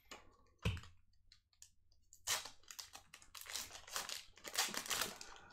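Pokémon booster-pack foil wrapper crinkling and trading cards being handled, a dense run of quick crackly rustles and clicks, with a single knock under a second in.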